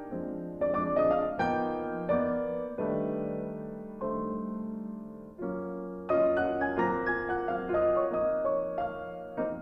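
Background piano music: slow, gentle notes and chords struck one after another, each fading away before the next.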